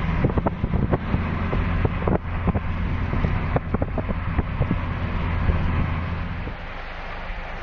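Typhoon wind buffeting the microphone over rough sea, a loud rush with a heavy low rumble and many sharp pops of gusts hitting the mic. The low rumble eases about a second before the end.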